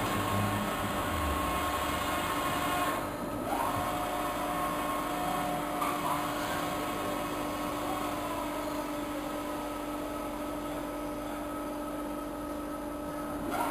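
Evashred EV110E Panther industrial shredder running steadily as it shreds a foam rubber bale fed through its force-feed hopper, with a constant motor hum; the sound briefly drops off about three seconds in.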